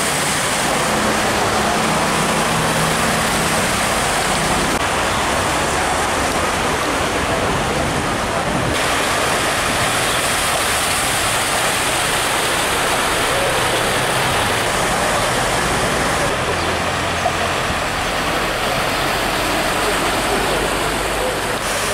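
Cars and a van driving through a flooded street, tyres swishing and splashing through deep water with engines running, over a steady rush of floodwater.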